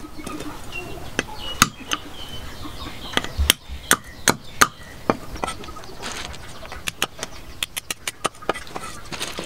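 Meat cleaver chopping snails on a wooden chopping block: a series of sharp knocks, irregular at first and coming more quickly near the end.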